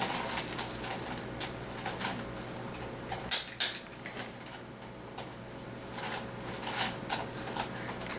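Sharp clicks of a spring-loaded Activator chiropractic adjusting instrument: two loud clicks in quick succession a little over three seconds in, then a few fainter ones later.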